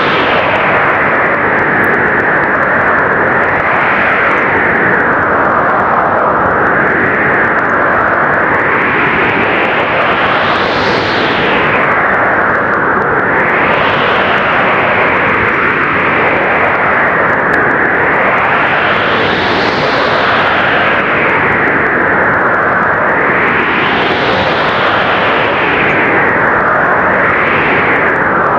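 Strong blizzard wind blowing as a loud, steady roar, with gusts that swell and fade every few seconds, each lifting the sound to a brighter hiss.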